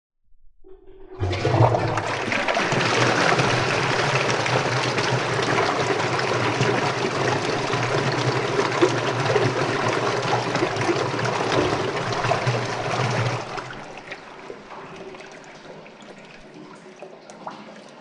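Toilet flushing: a loud rush of water through the bowl begins about a second in, runs steadily, then falls away to a quieter flow of water after about thirteen seconds.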